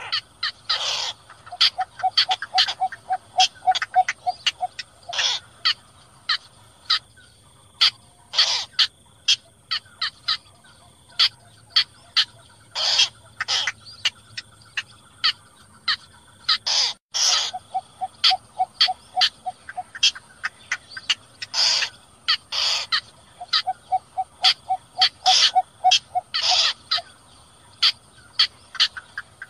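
Calls of small bitterns, the cinnamon bittern (cò lửa) among them, played as a lure for night bird netting. Many short, sharp calls are scattered throughout, with three runs of fast repeated low notes: one near the start, one a little past the middle, and one near the end.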